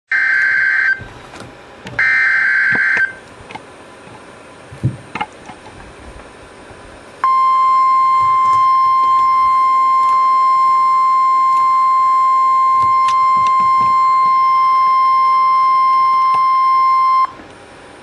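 NOAA Weather Radio Emergency Alert System alert for a tornado warning: two short, harsh bursts of SAME digital header data about a second apart, then a steady high warning tone held for about ten seconds and cut off abruptly. The tone signals that the spoken warning message is about to follow.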